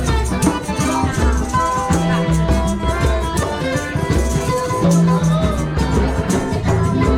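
Background music with a steady beat, held bass notes and shaker-like percussion.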